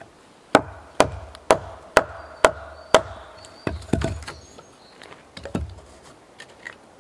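Wood being struck hard with a hand tool: six even blows about two a second, with a ringing note hanging between them, followed by a few weaker, irregular knocks.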